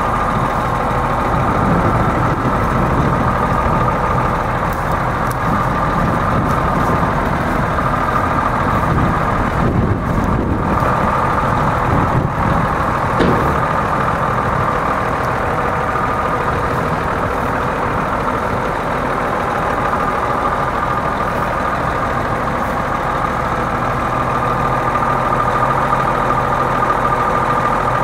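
ERF EC11.38 Olympic tractor unit's Cummins M11 straight-six diesel idling steadily.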